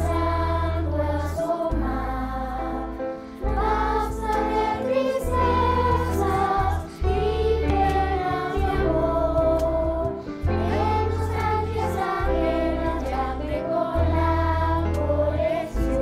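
Children's choir singing a slow song over an instrumental accompaniment, its low bass notes changing about every second and a half.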